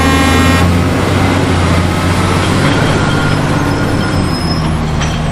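A large truck's engine running steadily, with a horn toot lasting about half a second at the start.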